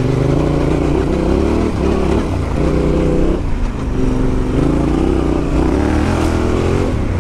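Yamaha Ténéré 700's parallel-twin engine running under way on a trail, its note rising and falling with the throttle, with a short easing-off about halfway through.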